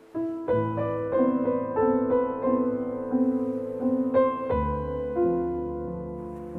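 Slow, gentle solo piano music: single notes and chords struck over a repeating low figure, with a deep bass note entering about four and a half seconds in.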